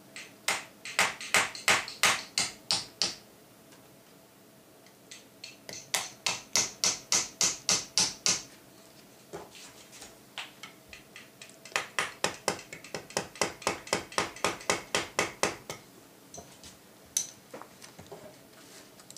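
A hammer tapping a brass pin punch, driving the trigger-unit retaining pins into a Weihrauch HW80 air rifle's action. The strikes are light and come in three quick runs of about five taps a second, with one more single tap near the end.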